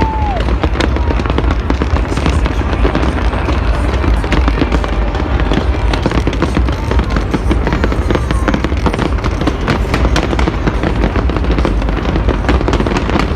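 New Year's fireworks display: a dense, unbroken crackling and popping of many shell bursts over a steady deep rumble of booms.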